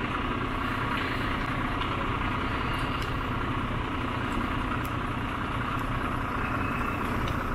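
Fire engines idling, a steady, unbroken engine drone with a few faint ticks.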